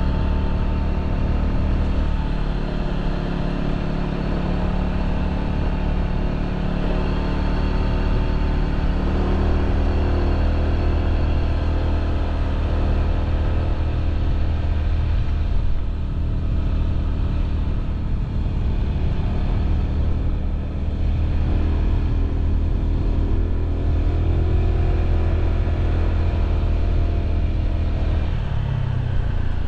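Honda PCX scooter's single-cylinder engine running steadily under way, its pitch shifting a little as speed changes and falling near the end as it slows.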